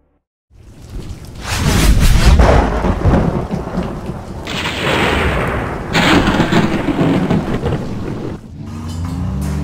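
Thunderstorm sound effect: thunder rumbling over heavy rain. The rumble builds about a second in, with two sharp cracks around the middle.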